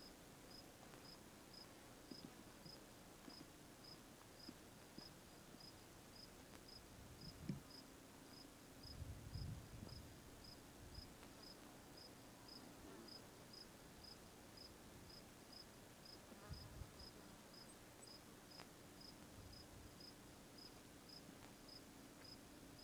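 Faint cricket chirping steadily, about two short high chirps a second. A few low thumps and a short low rumble come about seven to ten seconds in.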